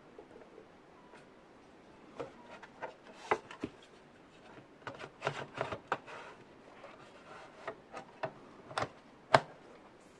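Irregular clicks, taps and short rubbing scrapes of small hard objects being handled, bunched in the middle, with the sharpest knock about nine seconds in.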